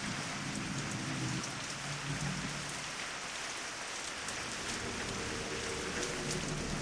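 Steady rain falling, an even hiss with scattered drop crackle, as a spooky haunted-house sound effect; faint low tones sit under it in places.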